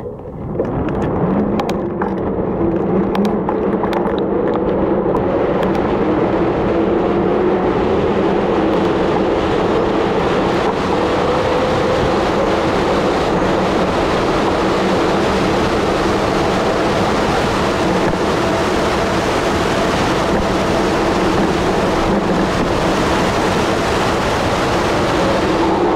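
Wind rushing over the microphone with tyre noise from a Merida bicycle coasting downhill on an asphalt road, growing louder over the first few seconds as it picks up speed. A few sharp clicks come in the first seconds.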